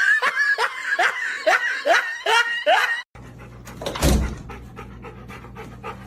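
A dog giving a quick run of short calls, each falling in pitch, about two or three a second, cut off abruptly about three seconds in; then a low steady hum with a single low thump.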